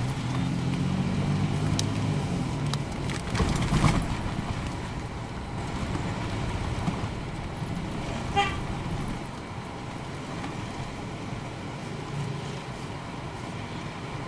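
Car engine and road noise heard from inside the cabin of a moving car, with a few knocks about four seconds in. A short horn toot a little past halfway.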